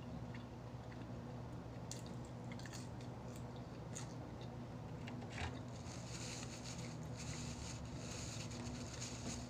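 Close-miked eating: biting into and chewing crispy fried chicken, first with scattered sharp crunches, then denser crackly crunching for the last few seconds. A steady low hum runs underneath.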